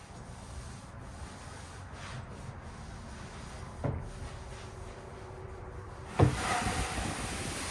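A soft brush on an extension pole scrubbing wet house siding makes a low, steady rubbing sound, with a single knock about four seconds in. A little after six seconds a sharp bang is followed by a louder, steady hiss that lasts to the end.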